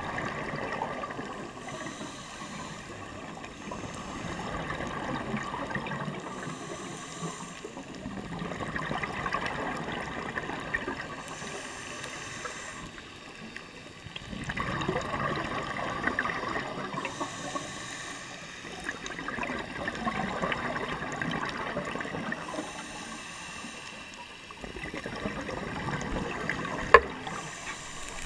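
Scuba diver breathing through a regulator underwater: a bubbling rush of exhaled air about every five seconds, with short hissing inhalations in between. A sharp click comes near the end.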